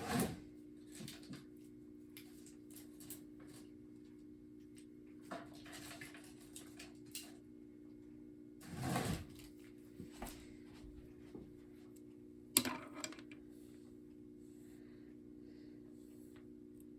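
Scattered clicks, knocks and rustles of small parts being handled and put away. A louder rustle comes about nine seconds in and a sharp click about three seconds later, over a steady low hum.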